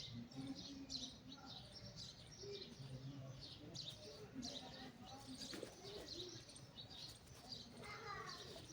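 Small birds chirping in quick, repeated high notes, with doves cooing low underneath; faint.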